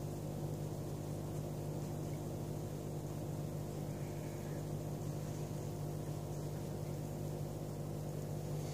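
A steady low hum throughout, with faint soft swishes of a powder brush sweeping over skin, the clearest at the very end.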